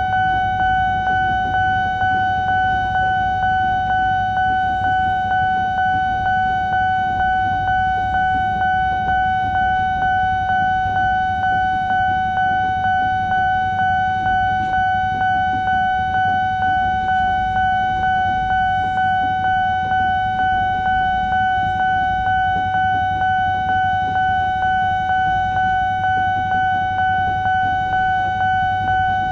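Railway level-crossing warning alarm sounding a steady electronic tone that pulses evenly about one and a half times a second, over the low rumble of a commuter electric train passing.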